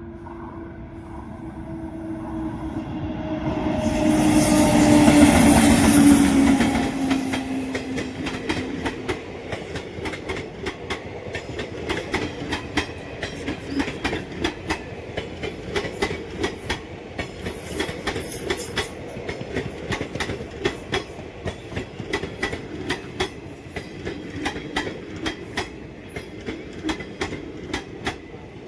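An Indian Railways train passing close by. It comes in loudest about five seconds in, with a tone dropping in pitch as the locomotive goes past, then a long run of rapid wheel clacks over the rail joints as the carriages roll by.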